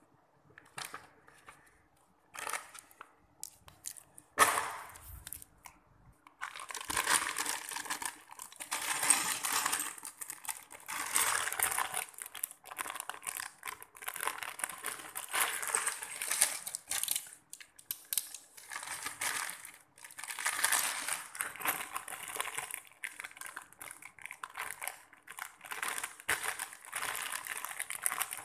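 Crinkling and rustling in irregular bursts, close to the microphone, with a few scattered clicks before it sets in about six seconds in.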